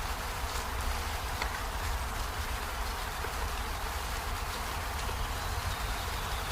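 Steady rain falling on peony flowers and leaves: an even hiss with scattered faint drop ticks over a low rumble.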